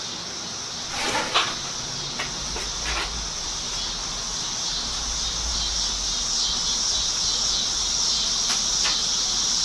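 Steady chorus of crickets or other insects, a continuous high shrill hum, with a few light clicks and knocks in the first three seconds.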